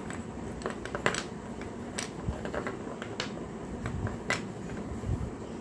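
Pieces of baked clay pot clicking and cracking: a string of irregular sharp clicks, the loudest coming about once a second.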